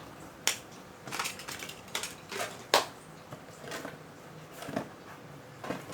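Hands handling cardboard and plastic packaging: a run of clicks, taps and short rustles, the sharpest a click a little under three seconds in.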